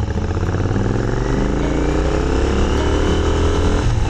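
Royal Enfield motorcycle engine pulling hard under acceleration, its pitch rising steadily, then dropping suddenly near the end at an upshift.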